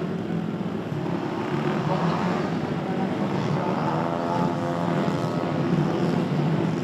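Several four-stroke Vespa race scooters idling and being blipped on the start grid, their engine notes rising and falling in pitch around the middle.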